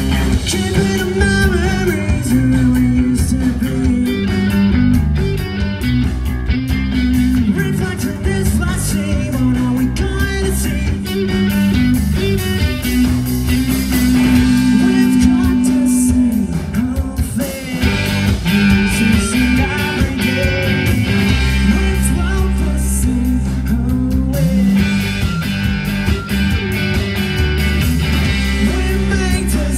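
A live rock band playing loudly through stage amplification: electric guitars over bass and drums.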